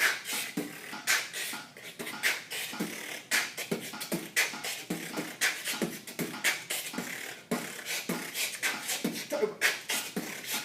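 Live human beatboxing at 100 beats per minute: a quick, steady rhythm of vocal kick-drum and snare-like strokes.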